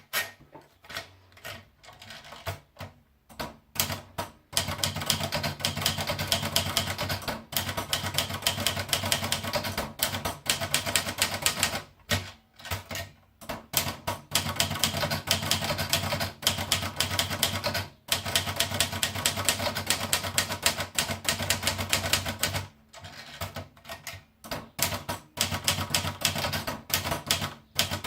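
Olivetti College manual portable typewriter being typed on. A few scattered keystrokes come first, then fast, continuous typing from about four seconds in, broken by a few short pauses.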